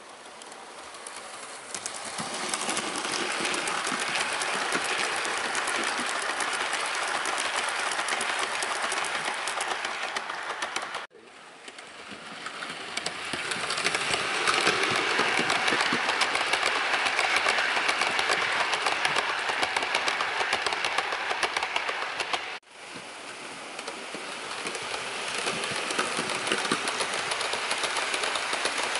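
Hornby LNER W1 'Hush Hush' model steam locomotive running on OO gauge track and hauling Pullman coaches: the whirr of its electric motor and gears over a dense clatter of wheels on rail. The sound cuts off abruptly twice, about a third and two-thirds of the way in, and grows louder again after each cut.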